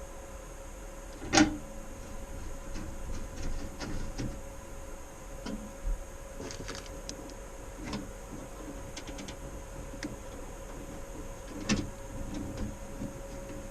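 Clicks and knocks of a desktop PC case and parts being handled during a video card and power supply install, with two sharper knocks, one about a second and a half in and one near the end, over a steady faint hum.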